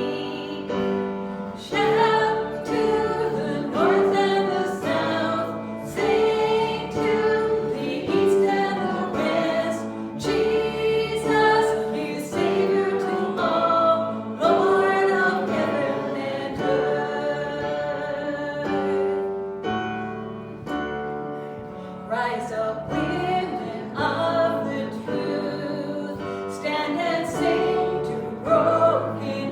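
Church worship song: several voices singing together over sustained instrumental chords.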